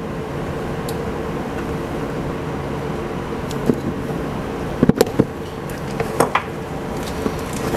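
Wire-stripping pliers clicking and snapping as insulation is stripped off small wires, with a cluster of sharp clicks about five seconds in and more a second later. Under them runs a steady machine hum.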